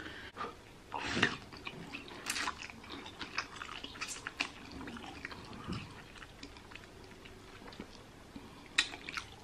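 Spicy instant noodles eaten with chopsticks: a few short slurps and many small wet clicks of chewing.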